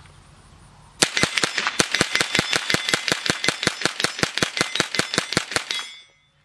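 A fast string of .22LR rifle shots from a Smith & Wesson M&P15 Sport AR-15 running a CMMG .22LR conversion kit, about eight shots a second. It starts about a second in and stops shortly before the end as the magazine runs dry.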